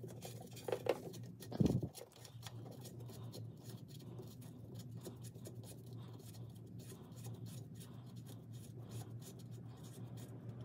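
Faint small clicks and scraping as a timing chain tensioner adapter is screwed by hand into a Polaris ProStar 570 engine's cylinder, with one louder knock about a second and a half in. A steady low hum runs underneath.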